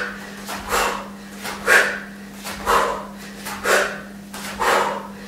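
A woman breathing out hard in short, forceful puffs, about one a second, in time with a hopping knee-raise exercise. A faint steady low hum runs underneath.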